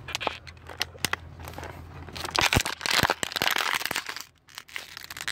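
Thin plastic water bottle crinkling and crackling as it is squeezed and handled right at the phone's microphone, with sharp clicks throughout and the densest crackling in the middle.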